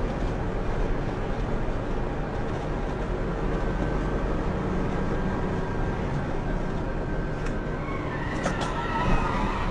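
Truck engine and road noise heard from inside the cab while driving, a steady low hum. Near the end come a few brief high-pitched squeaks and a sharp knock.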